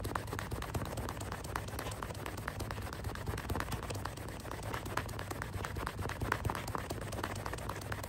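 Irregular light clicks and knocks, with some rubbing, as small wooden starburst-clock pieces are handled and polished by hand with a cloth, over a steady low hum.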